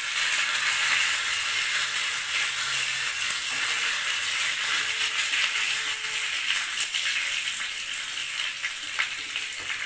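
Oil sizzling steadily in a small steel tempering pan as mustard seeds, dried red chillies and curry leaves fry, with a spoon stirring and scraping against the pan; a few light clicks near the end.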